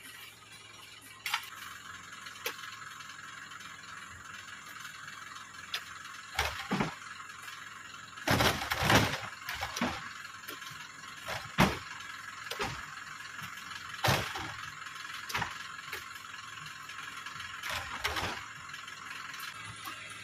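Oil palm fruit bunches being speared with a metal-tipped pole and heaved into a lorry's wooden cargo bed: about a dozen irregular thuds and knocks, the loudest a cluster about eight to nine seconds in, over a steady high hiss.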